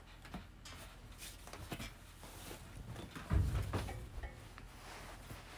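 Handling and movement noises: scattered light clicks and rustles, with a dull thump about three and a half seconds in.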